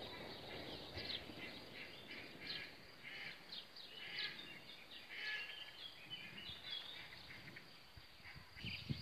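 Small birds chirping and singing in short, scattered phrases over faint outdoor background noise.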